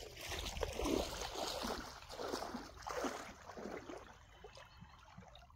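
Sea water splashing and sloshing in irregular strokes, growing fainter near the end.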